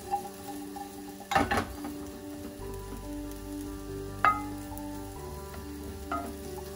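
Halved small potatoes sizzling as they fry in a stone-coated frying pan on a gas hob, stirred with a wooden spatula. There is a loud scrape about a second and a half in, and a sharp knock of the spatula against the pan a little after four seconds.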